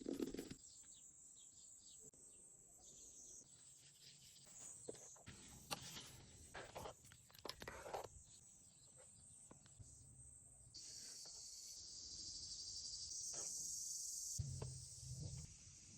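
Faint outdoor ambience: scattered light rustles and clicks, then a steady high insect chirring that starts abruptly about eleven seconds in and lasts a few seconds, with a brief low hum near the end.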